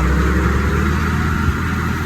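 Heavy diesel engine running steadily with a deep low rumble, with one short knock about one and a half seconds in.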